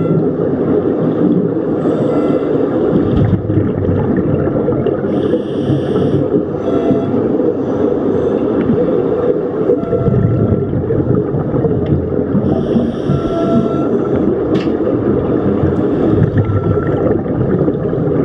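Underwater sound of scuba diving: a steady muffled rumble with the bubbling of divers' regulator exhalations coming in bursts every few seconds.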